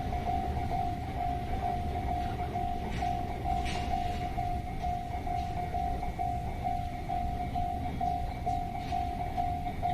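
Japanese level-crossing alarm sounding its steady electronic ding, about two a second, over the low rumble of a train passing through the crossing.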